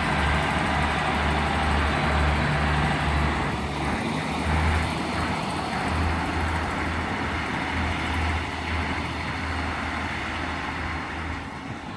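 Two coupled Class 153 single-car diesel multiple units pulling away, their diesel engines throbbing steadily under power. The sound fades near the end as they move off.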